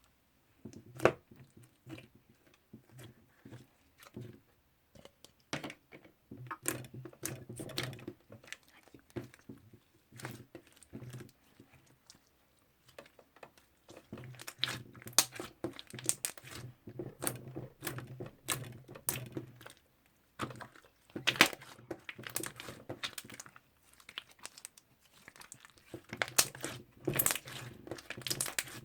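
Toffee slime being handled by hand: irregular crinkly crackles and sharp little clicks, coming in clusters with short pauses between.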